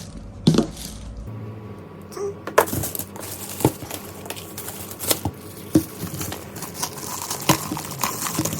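Handling noises as the stainless grinder and its packaging are unpacked: scattered light clicks and knocks, about six over several seconds, over soft rustling.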